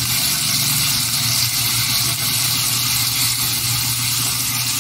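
Garlic and onion sizzling in hot oil in a frying pan: a steady hiss, with a steady low hum underneath.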